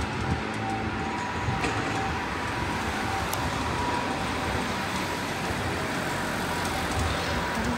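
Steady city street noise of road traffic, with a faint high tone that comes and goes.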